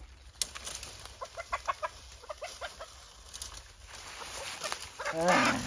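A chicken clucking in a quick run of short notes, then a louder, longer call near the end.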